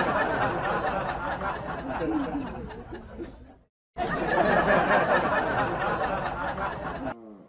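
Laughter and chatter from a group of people, breaking off for a moment about three and a half seconds in and then starting again.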